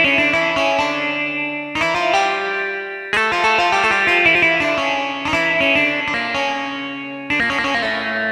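Korg Pa600 arranger keyboard playing a plucked-string, guitar-like voice in fast runs of notes. Fresh phrases start about two, three and seven seconds in, and each rings out and fades.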